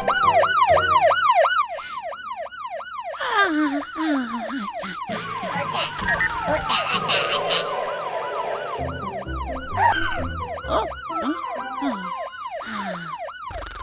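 Cartoon siren sound effect: a fast, repeating up-and-down wail, about three or four cycles a second. It is loudest at the start and comes back near the end, with other cartoon sound effects and music mixed in through the middle.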